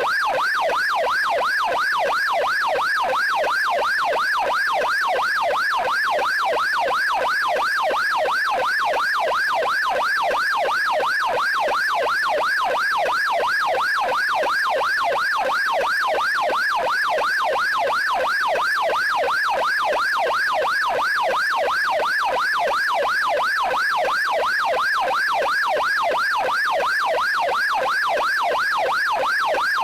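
Electronic police yelp siren wailing continuously, its pitch sweeping rapidly up and down in an even, unbroken cycle.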